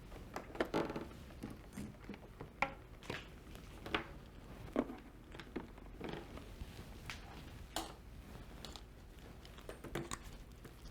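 Faint, scattered plastic clicks, taps and rustles of ventilator circuit tubing being handled and reconnected to a humidifier chamber.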